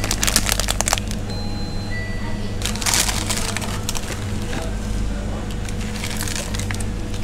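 Plastic instant-noodle packet crinkling as it is handled and torn open, with a dense burst of tearing and rustling about three seconds in and more crackles near the end. A steady low hum runs underneath.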